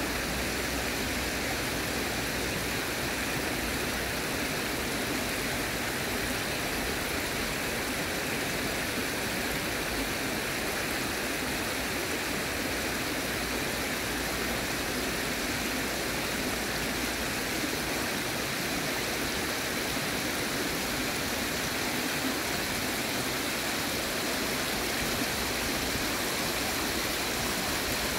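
Steady rush of a shallow urban stream flowing over rocks and a low weir.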